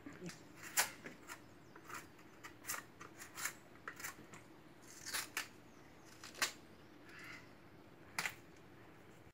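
Knife cutting and scraping the thick brown skin off a piece of cassava root, giving irregular crisp cuts and scrapes with a few louder snaps.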